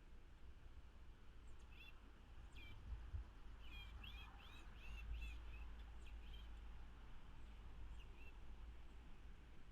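Faint bird chirps: a few short separate chirps, then a quick run of about six chirps about four seconds in, over a low background rumble.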